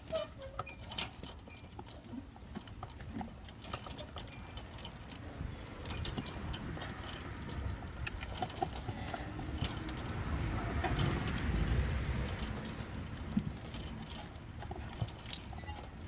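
Scattered metallic clicks and rattles of tools and mounting hardware being handled while a battery disconnect switch is fitted. A low rumble swells and fades in the middle.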